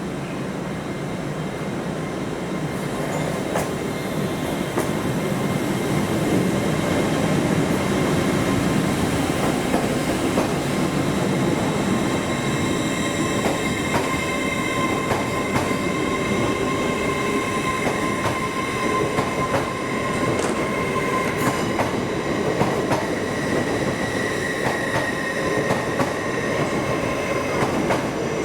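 A train moving slowly through the station: the steady rumble of its wheels, with high steady squealing tones from the wheels and scattered sharp clicks as they run over rail joints. The sound grows louder about six seconds in.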